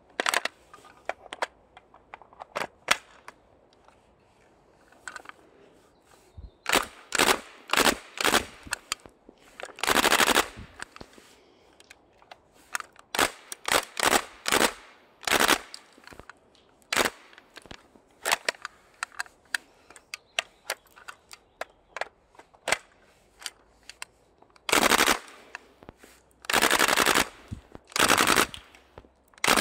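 Airsoft guns firing: scattered single shots mixed with short full-auto bursts. The longest burst runs about a second, close to the end.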